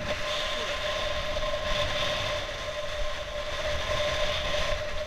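Wind buffeting an action camera's microphone: a rough low rumble and hiss, with a steady high whine running through it.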